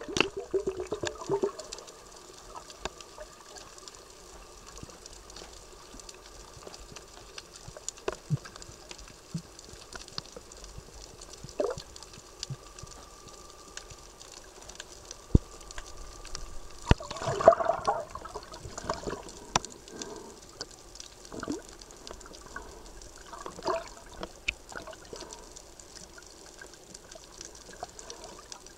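Underwater water noise picked up by the camera, with scattered sharp clicks and a louder rush of watery noise about 17 seconds in.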